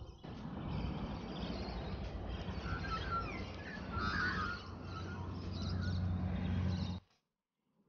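Outdoor ambience: a steady low rumble under a wash of noise, with birds chirping a few times around the middle. The sound cuts off abruptly about seven seconds in.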